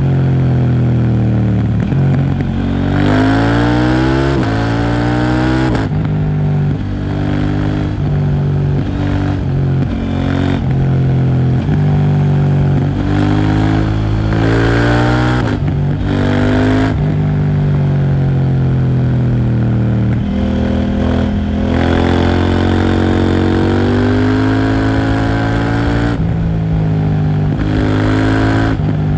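KTM Duke 790's parallel-twin engine through a Leo Vince exhaust, ridden hard: several pulls rising in pitch, each broken by a brief cut at the gear change, with the pitch falling away between them as it slows down.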